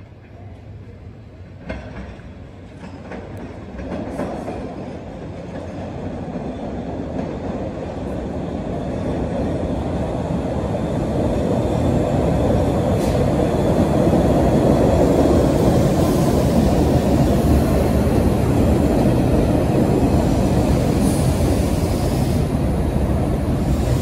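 MBTA Red Line subway train approaching and running in along an underground station platform, its rumble growing steadily louder and then holding loud as the cars pass.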